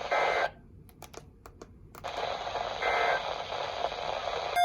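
Weather radio receiver hissing with static between broadcasts. About half a second in, the hiss cuts out for roughly a second and a half with a few faint clicks, then returns.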